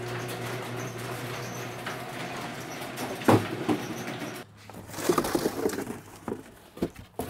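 Electric garage door opener running with a steady hum as the sectional door rises, cutting off about four and a half seconds in, with a knock shortly before. Scattered knocks and rustling follow as things in the garage are handled.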